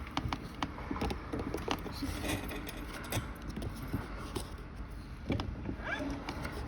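Scattered clicks and light knocks of a plastic wheel cover being handled and pressed into a kids' ride-on car's wheel until it snaps into place.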